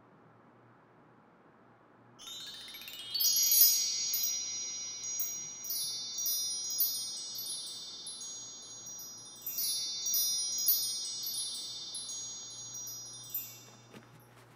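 Wind chimes ringing over a faint low hum: a quick rising sweep about two seconds in, then a run of high, tinkling strikes that slowly fade out near the end.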